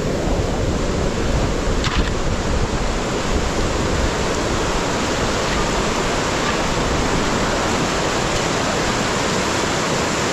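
Steady rush of water, an even unbroken noise with no let-up.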